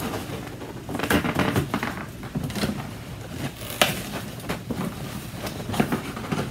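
Cardboard box and its packing being handled and opened: scraping and rustling with scattered light knocks, the sharpest about four seconds in.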